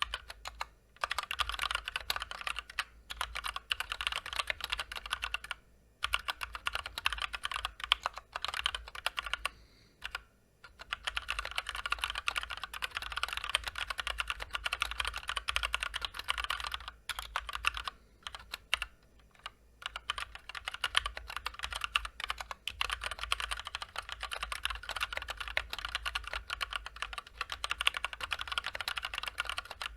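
Fast continuous typing on a Drop Ctrl High Profile mechanical keyboard with Gateron Clear linear switches, unlubricated stock switches and stabilizers, and double-shot PBT keycaps: a dense clatter of key clicks with brief pauses about 6 and 10 seconds in and a few short gaps a little past the middle.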